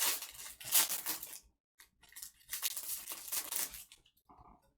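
Trading card pack wrapper tearing and crinkling as it is ripped open, in two stretches about a second and a half each, with a few faint ticks near the end.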